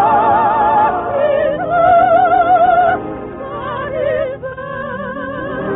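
Operetta singing with orchestra on an old radio-broadcast recording: a voice holds long notes of about a second each with wide vibrato, stepping down in pitch over the accompaniment.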